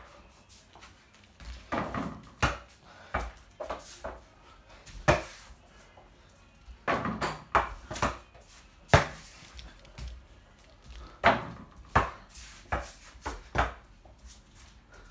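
A small rubber ball dribbled on a hard floor indoors: irregular sharp knocks as it bounces, some in quick runs, with a short ring after each.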